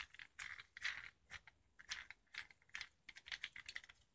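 Faint, irregular small clicks and rattles of a die-cast toy car being handled and turned over in the hand, its metal body and wheels knocking against fingers.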